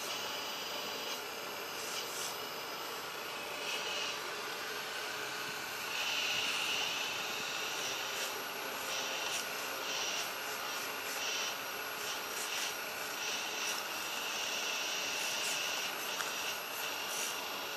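Hydraulic pump of a 1:12 scale RC hydraulic excavator running with a steady high whine, surging and shifting in short bursts many times as the valves switch and the arm and bucket work through the soil.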